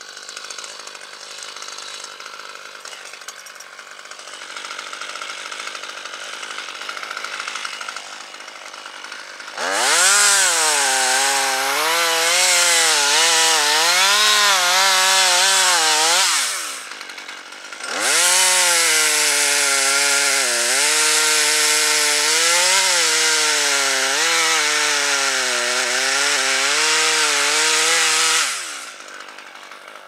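Husqvarna T540 XP top-handle two-stroke chainsaw idling, then revved to full throttle and cutting into a maple limb in two long runs, its engine pitch dipping and rising as the chain bites. It drops briefly to idle between the runs and returns to idle near the end.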